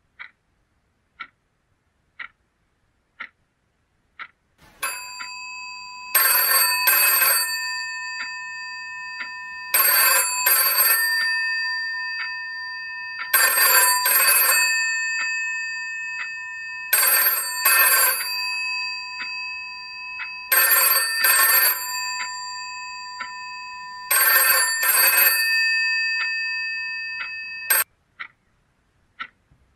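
Telephone bell ringing in a double-ring pattern, six pairs of rings about three and a half seconds apart, cut off suddenly. It is preceded by faint ticks about once a second, which return after the ringing stops.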